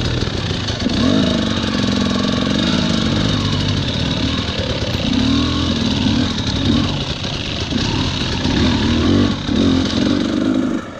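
Dirt bike engine running at low speed, its pitch rising and falling with short, repeated bursts of throttle, as in slow technical riding over rocks.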